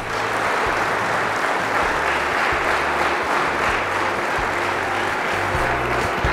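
A church congregation applauding steadily, with music playing low underneath.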